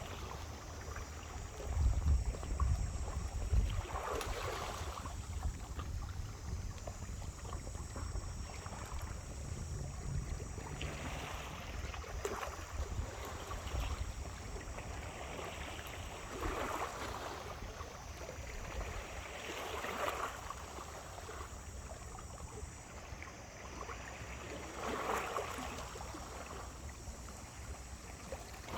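Small waves washing onto a beach, a swell of surf every few seconds over a steady background hiss, with a low rumble about two seconds in.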